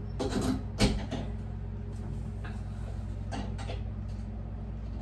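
Small metal clicks and scrapes of a toilet roll holder being worked onto its wall base while its tiny grub screw is turned with an Allen key: one sharp click a little under a second in, then a few faint scrapes.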